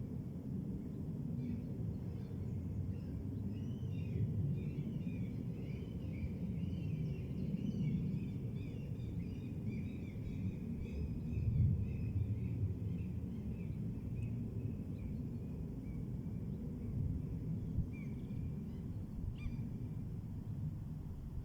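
A songbird singing a long run of quick, looping high phrases that fades out near the end, over a steady low rumble of outdoor noise, the loudest sound.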